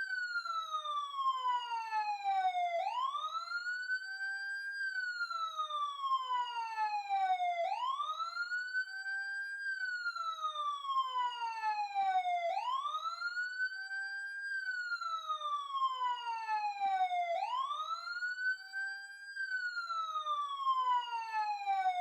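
Police siren sounding a wail: the pitch climbs quickly, then slides slowly back down, repeating about every five seconds. It cuts off abruptly at the end.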